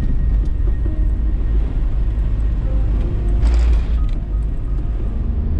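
A car driving on a gravel road, heard from inside the cab: a steady low rumble of engine and tyres, with a brief rush of noise about three and a half seconds in.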